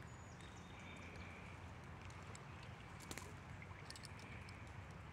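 Faint outdoor background: a low, steady rumble with a few light clicks and ticks, about three seconds in, a second later and near the end.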